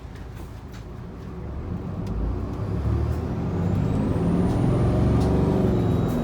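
A Hino Blue Ribbon II city bus's engine and drivetrain, heard inside the cabin, growing louder as the bus pulls away and accelerates. About three seconds in, a thin high whine rises in pitch and then holds steady.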